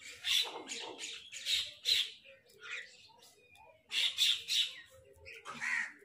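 Mynas giving harsh, squawking calls, one after another, several times, with a loud cluster of calls about four seconds in.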